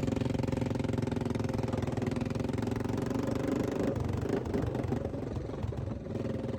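ATV (quad bike) engine running at a steady, even pace. About four seconds in, the sound turns rough and uneven for a couple of seconds, then steadies again.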